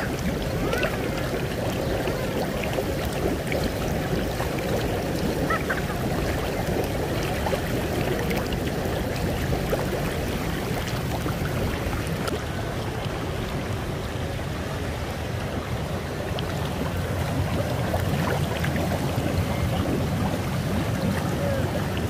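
Hot tub jets running, the water churning and bubbling steadily.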